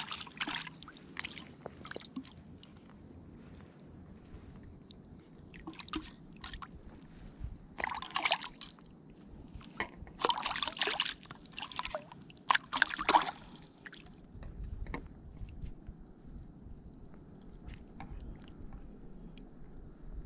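Water splashing and sloshing as a black sea bream is drawn into a landing net at the surface and lifted out, in a handful of short bursts several seconds apart, with dripping between them.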